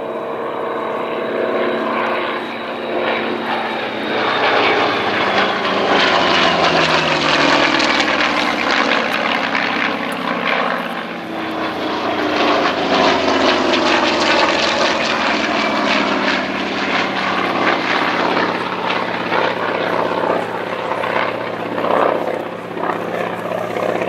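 Douglas AD-4N Skyraider's 18-cylinder twin-row radial engine (Wright R-3350) and propeller running at display power as the aircraft flies past, the engine note falling in pitch as it goes by.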